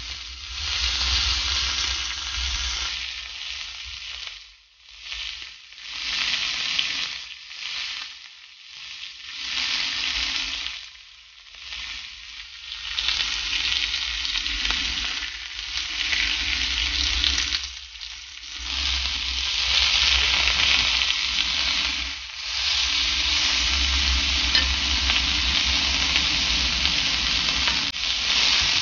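Food sizzling and frying in a hot pan. The sizzle swells and fades by turns, then holds steadier near the end.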